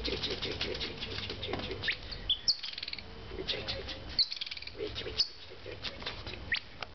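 High-pitched chirping calls with a few short rising whistles, over a patter of sharp clicks and rustles.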